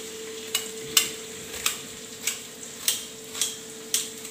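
Knife cutting onions on a board, about seven sharp taps roughly every half second, over the steady hiss of onions frying in the pan.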